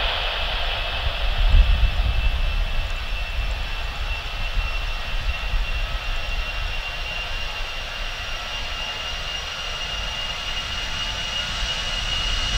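Airbus A320's CFM56 jet engines whining steadily at taxi power as the airliner rolls along the runway. The whine climbs slowly in pitch and grows louder near the end as the aircraft comes closer.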